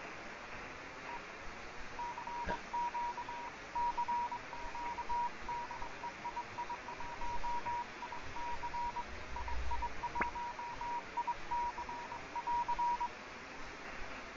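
Morse code (CW) signal heard through a shortwave receiver on the 30-metre amateur band: a single tone near 1 kHz keyed on and off in dots and dashes over steady receiver hiss, starting about a second in and stopping near the end. Two short clicks break in, one about two and a half seconds in and one around ten seconds.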